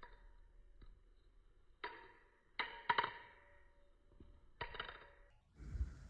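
Henninger Designs Telesto butterfly knife (balisong) clacking as it is flipped: a handful of sharp metallic clicks with a short ring as the handles strike each other and the blade, then a low thump near the end.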